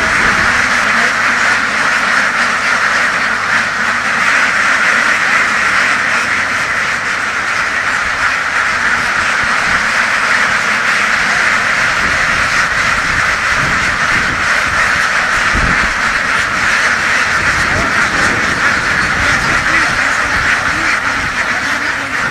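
A large flock of domestic laying ducks quacking all at once, a loud continuous chorus with no break.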